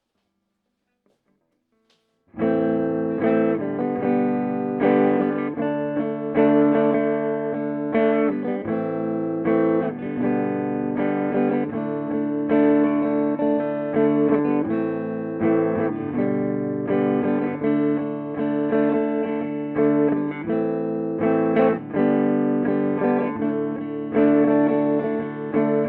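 Electric guitar played through a Peavey Bandit 112 TransTube combo amp's clean channel in classic voicing, plugged into the high-gain input. It comes in about two seconds in and runs as a steady stream of struck chords and notes.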